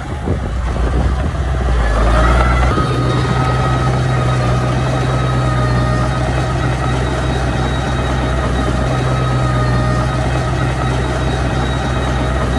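Small crawler bulldozer's diesel engine running as it pushes dirt, rising in pitch about two seconds in and then holding steady at the higher speed.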